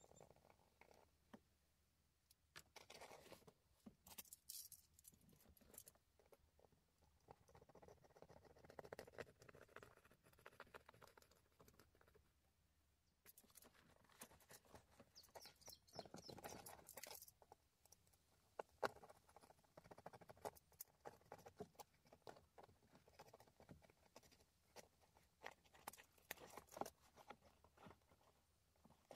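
Faint rustling and scraping of car floor carpet and wiring being handled, with scattered small clicks.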